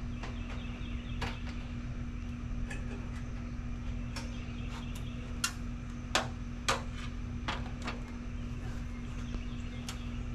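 Scattered sharp taps and knocks of hand work on metal gutter parts, about nine in all and irregularly spaced, the loudest two coming close together about six seconds in, over a steady low hum.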